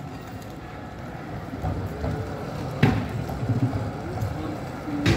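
Older green articulated tram approaching along the street track, its low rumble growing louder, with a sharp clack about three seconds in and another near the end.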